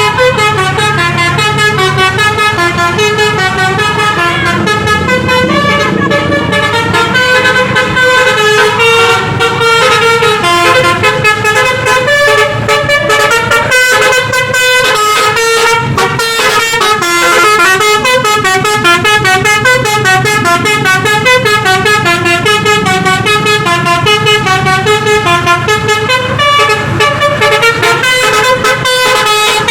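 Tour bus's basuri 'telolet' musical air horn playing a continuous melody of stepped notes, over the low rumble of the bus's engine.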